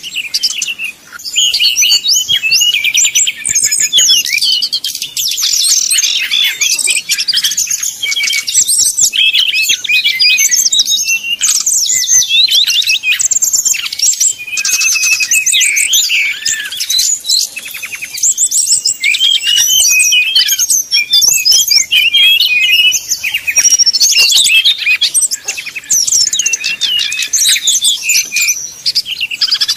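Sikatan rimba dada coklat (SRDC), a jungle flycatcher, singing a fast, almost unbroken song of quick rising and falling whistles and trills: the heated singing of a bird challenging a rival.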